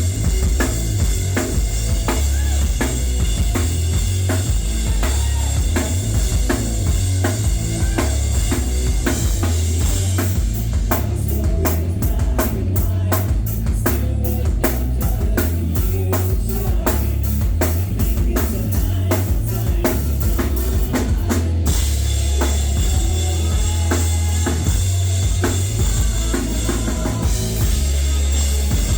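Rock band playing live, with a loud deep low end and steady drums. About a third of the way in the cymbals drop out for a stretch of fast, evenly spaced drum hits, and the full band comes back in about three quarters of the way through.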